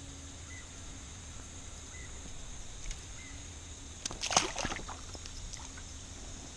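A small fish released from the hand back into the pond, a brief splash a little over four seconds in, over a faint steady background.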